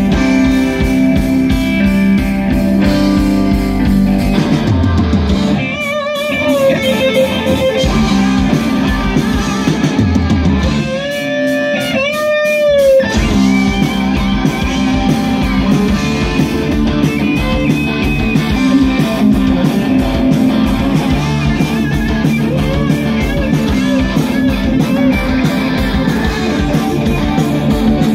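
Live rock band playing: electric guitar, bass and drum kit. Twice the band drops out for a few seconds, leaving a single held, wavering note, before the full band comes back in.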